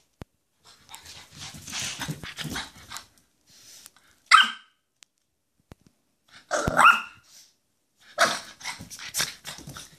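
A French Bulldog barking twice in excited play, a short sharp bark about four seconds in and a longer one near seven seconds. Fainter scuffling noises come between the barks.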